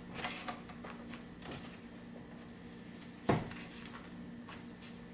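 Plastic screen bezel of an Acer Aspire V3-572PG laptop being pressed onto the lid: light handling clicks, then one sharp snap about three seconds in as a clip seats.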